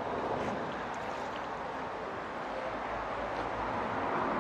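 Steady outdoor background noise, an even hiss with no distinct event.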